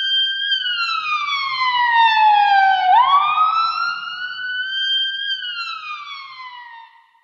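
Wailing siren sound effect: a single tone with overtones climbs, slides slowly down, swoops back up about three seconds in, then slides down again and fades out about seven seconds in.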